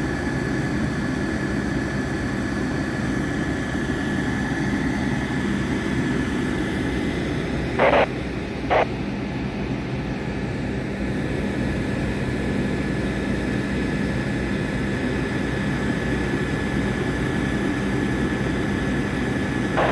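Steady engine rumble running throughout, with a faint steady high tone over it. About eight seconds in come two short, loud sounds less than a second apart.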